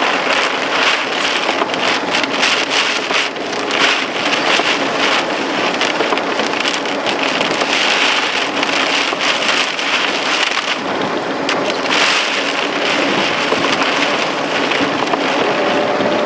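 Heavy rain beating on a vehicle driving through a severe thunderstorm: a dense, steady rush of water with many sharp drop hits.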